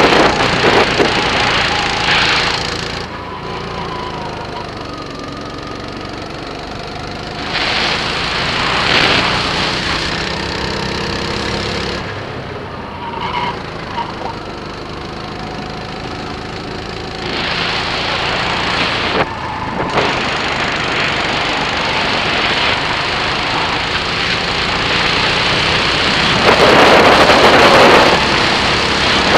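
Birel N35 rental kart's engine running on track, swelling and climbing in pitch on several stretches as it accelerates, then dropping back as it lets off, in repeated cycles.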